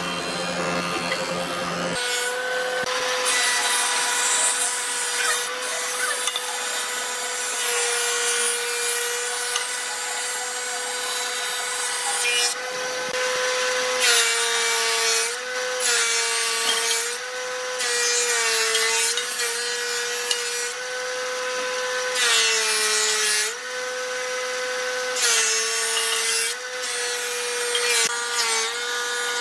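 Combination jointer and thickness planer running with a steady machine whine. Its pitch sags briefly several times as boards feed through and the cutterhead takes load, over the hissing rush of the blades shaving wood.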